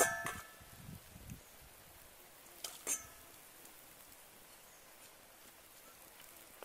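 Steel cleaver clinking against a stainless-steel bowl with a brief metallic ring as chopped ingredients are scraped in, once at the start and again twice about three seconds in, with a few dull knocks of the blade on the wooden chopping board in between.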